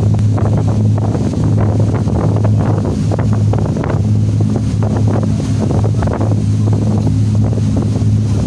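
Boat engine running with a steady low drone, while wind buffets the microphone in irregular gusts.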